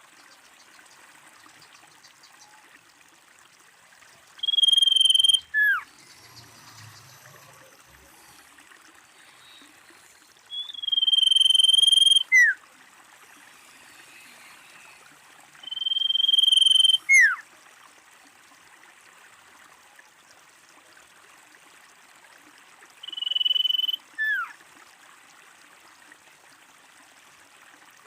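Common iora calling four times, several seconds apart: each call is a long steady whistle followed by a short note sliding down in pitch.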